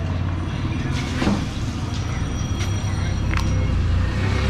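Street traffic: a steady low vehicle-engine rumble, with a few short, light knocks.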